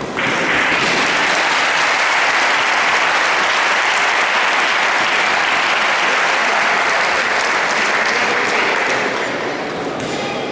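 Crowd applauding, starting suddenly and easing off near the end.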